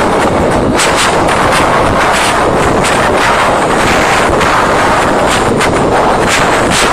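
Concert crowd screaming, so loud on a mobile phone's microphone that it overloads into a constant, harsh distorted noise with scattered crackles.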